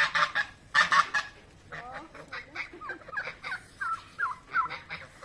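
Domestic geese honking: two loud, harsh honks at the start, then a run of short, quicker calls that bend in pitch, and more loud honks near the end.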